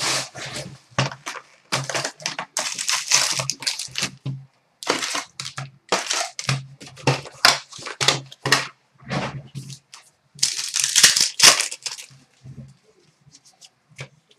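Plastic wrapping crinkling and tearing in quick, irregular bursts as a sealed trading-card box is unwrapped and opened.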